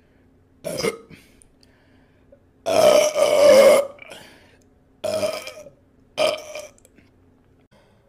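A woman burping four times: a short burp just under a second in, a long, loud burp about three seconds in, then two shorter burps.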